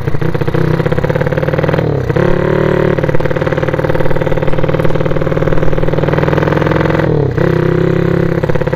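Small motorcycle engine on a motorized bicycle running under way with a loud open exhaust. Its note drops briefly twice, about two seconds in and about seven seconds in, then picks up again.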